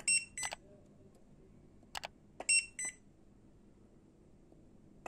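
BIFRC DH20 portable battery spot welder beeping in pairs of short high beeps, twice, with a sharp snap about two seconds in as a weld pulse fires through nickel strip on an 18650 cell at power level 4.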